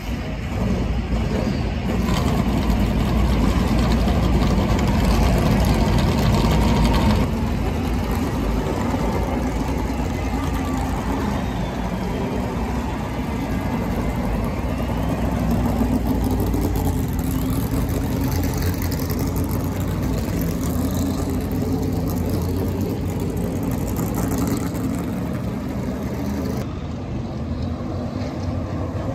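A field of NASCAR Cup Series stock cars with V8 engines running loudly at low speed as the cars roll off pit road behind the pace car. The sound is loudest in the first several seconds.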